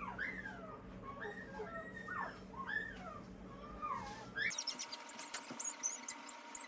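Newborn pointer puppies squealing and whining in short rising-and-falling cries, about two a second. In the last two seconds the cries turn higher and shorter.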